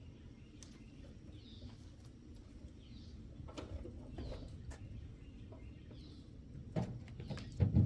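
A bird calls over and over, one short call about every second and a half. Near the end come a few sharp knocks, the loudest sounds here.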